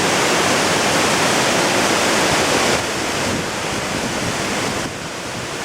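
Waterfall rushing: a steady, loud wash of falling water that drops a little in level about three seconds in.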